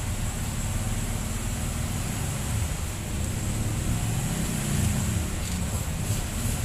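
A steady low engine rumble, with a few faint clicks of metal parts being handled near the end.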